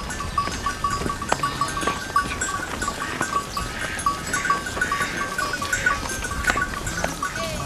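Flock of sheep and goats on the move, their bells clinking over and over.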